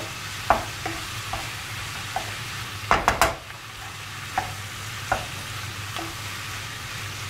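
Oyster mushrooms and raw chicken strips sizzling in olive oil in a pan, with a wooden spatula scraping and knocking against the pan as it stirs. The sizzle holds steady under irregular clicks of the spatula, the loudest knocks coming about three seconds in.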